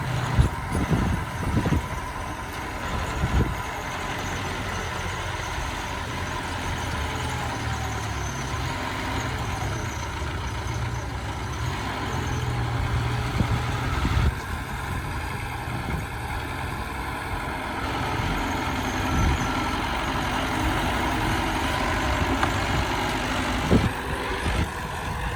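Bulldozer's diesel engine running steadily under work, with a few sharp knocks in the first few seconds and again near the end.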